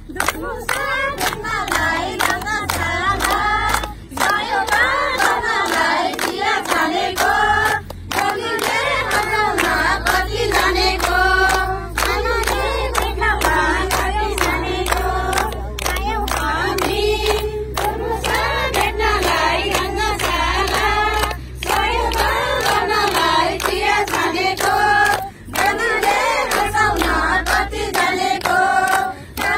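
A group of women singing a Nepali song together in chorus, clapping their hands along in time.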